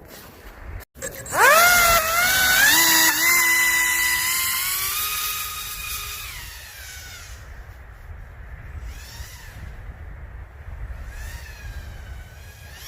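Pro Boat Aerotrooper RC airboat's electric motor and propeller whining. It throttles up sharply about a second in to a loud, high whine that wavers in pitch, then fades away, with fainter rising and falling whines near the end as it passes at a distance.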